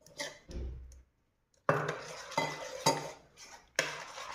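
A metal spoon stirring thick flour batter in a bowl. It scrapes softly at first, then clinks sharply against the bowl four times in the second half.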